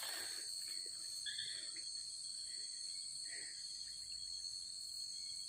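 Steady, continuous chorus of night insects such as crickets, shrilling high-pitched without a break, with a few faint soft rustles underneath.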